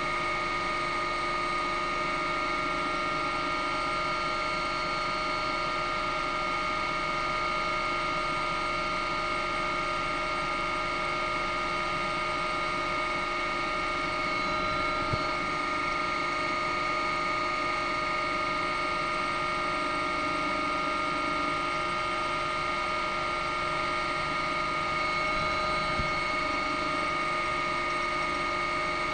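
Steady helicopter cabin noise: a constant turbine and gearbox whine of several fixed tones over a hiss, unchanging throughout.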